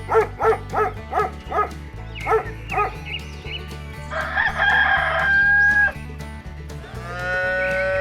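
Farm animal calls over background music with a steady beat: a quick run of hen clucks, then a rooster crowing in the middle, then a long cow moo starting near the end.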